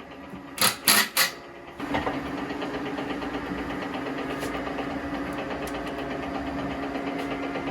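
A few loud knocks, then a roughly 40-year-old salvaged electric motor driving a log-splitting cone screw starts up about two seconds in and runs steadily with a hum and a light even rattle.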